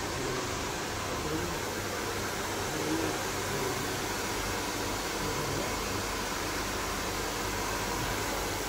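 Steady, even background hiss of a barbershop's room tone, with no distinct events.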